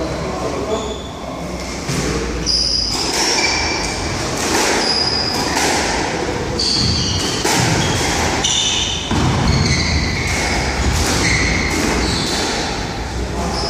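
Squash rally: a series of sharp knocks about once a second as the ball is struck by the rackets and hits the walls, with short high squeaks of court shoes on the wooden floor between shots.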